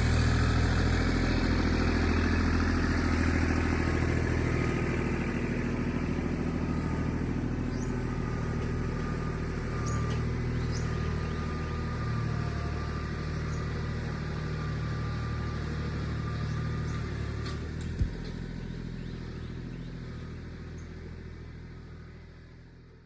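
An engine running steadily at a low, even speed, with a single sharp knock about three-quarters of the way through; it slowly fades over the last few seconds before cutting off.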